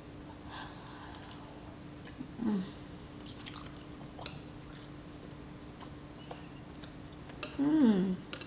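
Close-up chewing of a mouthful of tteokbokki (spicy rice cakes), with light clicks of metal chopsticks against the glass bowl. A short falling 'mmm' of enjoyment comes about two and a half seconds in, and a louder one near the end.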